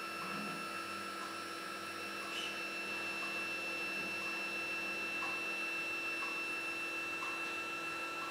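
Skywatcher NEQ6 equatorial mount's right-ascension stepper motor and stock gear drive slewing under load: a steady whine of several tones, with a faint tick about once a second. This is the unmodified gear drive, before a belt-drive upgrade.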